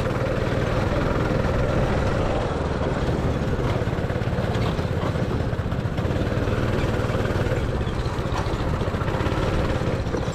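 Go-kart engine running steadily under way, with tyre and track noise, heard from on board the kart.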